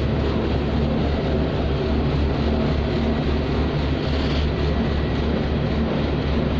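A tugboat's diesel engines running at steady speed, a constant low drone heard from inside the wheelhouse.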